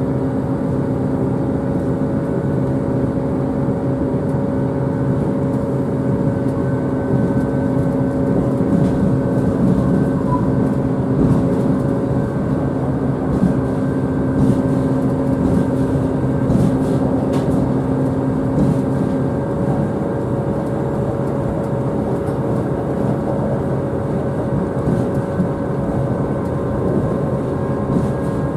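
Inside a diesel railcar running along the line: a steady engine drone and rumble of wheels on rail. A low hum in it stops about two-thirds of the way through.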